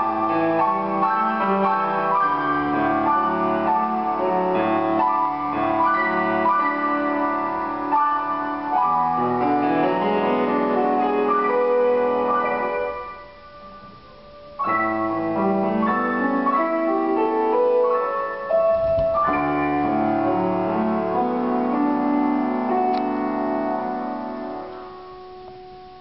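Grand piano played solo with sustained chords and melody. The sound dies away about thirteen seconds in, the playing resumes a moment later, and a final chord fades out near the end.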